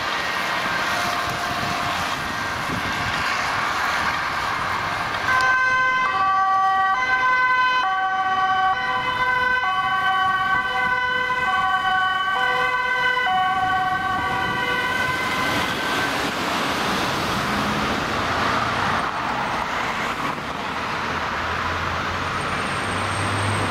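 Dutch ambulance two-tone siren switching back and forth between a high and a low pitch, clearest from about five to fifteen seconds in, over the noise of passing road traffic.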